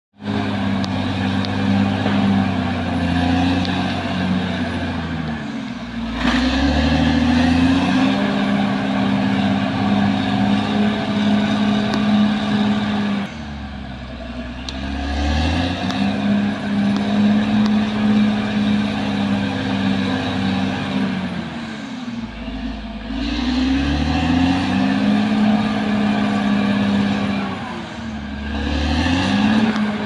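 Caterpillar D6R XL bulldozer's diesel engine working under load. Its pitch sags and recovers about every seven to eight seconds, with a deep low rumble at each change.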